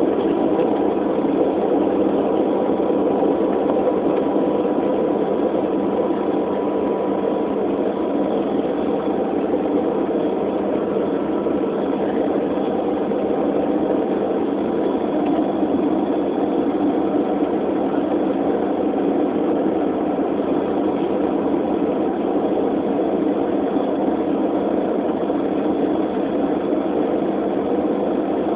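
Jet airliner's engines idling steadily while the aircraft holds on the runway, heard inside the cabin as an even drone with a faint steady whine.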